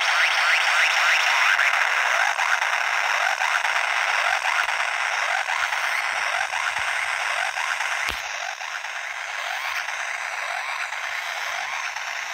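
Korg Monotron Delay analog ribbon synthesizer playing a crunchy, gritty, noisy tone full of many quick rising chirps. It eases off a little after a single click about eight seconds in.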